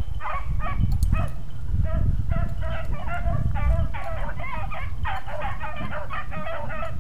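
A pack of beagles baying on a rabbit's trail, many overlapping cries repeating without a break, over a steady low rumble.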